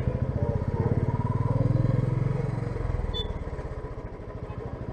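Motorcycle engine running while riding, its rapid firing pulses loudest for the first few seconds and easing off about three seconds in.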